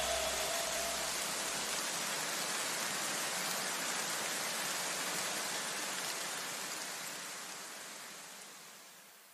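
A steady, rain-like hiss left over from the electronic background music, slowly fading away to nothing toward the end.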